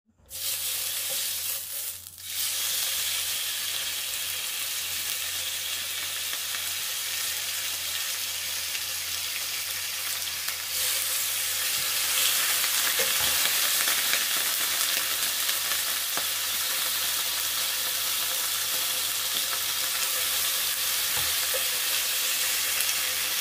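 Thinly sliced beef sizzling as it is seared in hot vegetable oil in a pan, half-cooking it. The sizzle starts suddenly as the meat goes in, dips briefly about two seconds in, then runs steadily and grows a little louder about halfway through as more slices are laid in with tongs.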